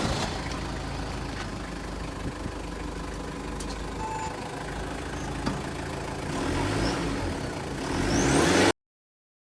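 Toyota Land Cruiser Prado engine running steadily, with the revs rising and falling twice in the last few seconds. The sound cuts off suddenly shortly before the end.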